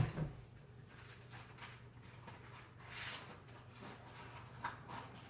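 Dishes being washed at a kitchen sink: a sharp clunk at the start, then faint clinks and a brief run of tap water about three seconds in, over a low steady hum.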